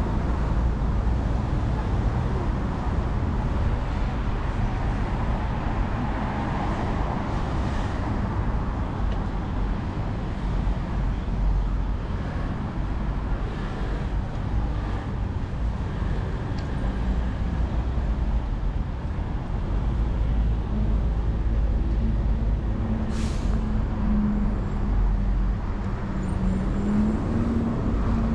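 Road traffic on a busy multi-lane city street: cars and buses running past in a steady rumble. A brief hiss about two-thirds of the way through, and a steady engine drone near the end.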